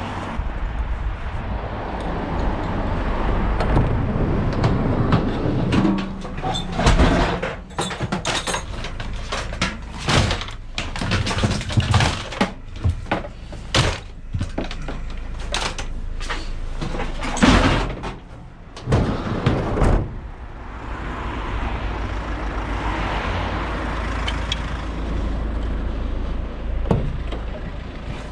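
Scrap, including a discarded microwave, being handled and loaded into a van: a run of irregular knocks and clanks over a steady low rumble, busiest in the middle and giving way to a more even noise near the end.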